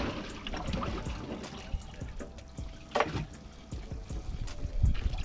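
Water trickling and sloshing as a bag is handled in a bass boat, with scattered knocks and one louder splash-like burst about three seconds in.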